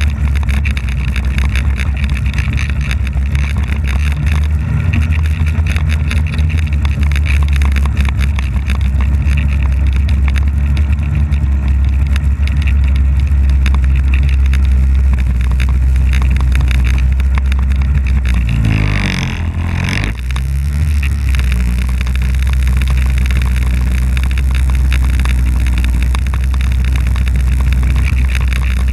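Polaris snowmobile engine running steadily under throttle with a steady hiss over it. About two-thirds of the way through, the revs drop briefly and climb back up.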